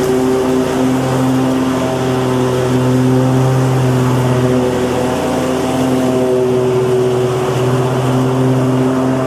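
Lawn mower engine running steadily at a constant speed, a continuous drone with slight wavering in pitch.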